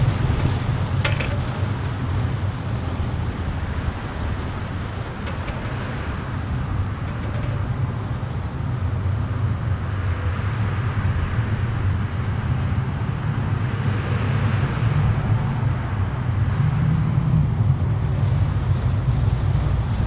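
Gusty Santa Ana wind hissing through the needles of a pine tree, swelling in gusts about halfway through and again near the end, with a heavy low rumble of wind buffeting the microphone.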